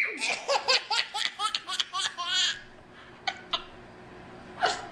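A baby's belly laughter: a quick run of short laughs for the first two and a half seconds, a lull, then another laugh starting near the end.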